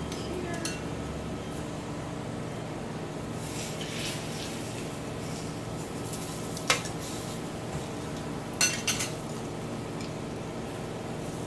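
Metal tongs clinking against a round grill pan as battered cabbage is turned, with one sharp clink about two-thirds of the way in and a quick cluster of clinks a couple of seconds later, over a steady background hum.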